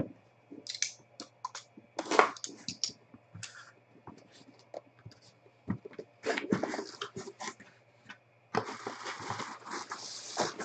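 Crackling and scraping as a cardboard hobby box is unwrapped and its lid worked open. From about two-thirds of the way through, the wrapping inside rustles steadily as it is pulled apart.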